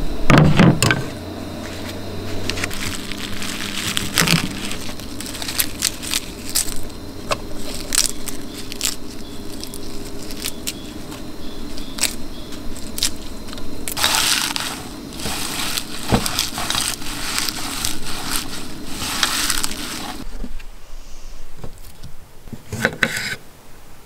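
Food preparation on a wooden cutting board set on a plastic water jug: knocks as things are put down at the start, then curly kale crunching and crinkling as it is broken up, mixed with knife taps and clicks on the board.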